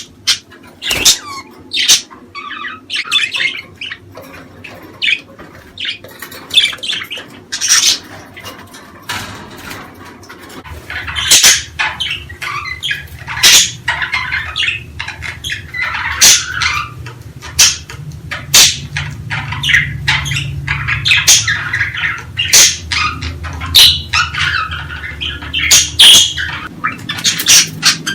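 Budgerigars chattering with rapid chirps and squawks, mixed with sharp short clicks. A low steady hum comes in about a third of the way through and stops near the end.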